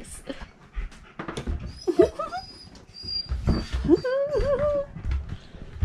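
Dog whining and howling in pitched, wavering cries: a short one about two seconds in and a longer, wobbling one around four seconds. The dog is upset at being left behind.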